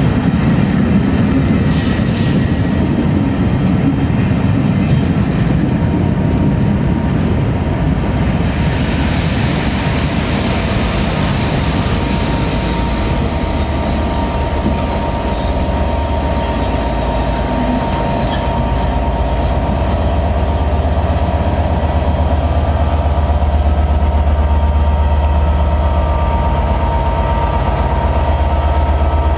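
Pullman coaches rolling slowly past on the rails, with wheel noise throughout. Over the last third a low diesel drone grows as the trailing Class 67 locomotive's engine comes level.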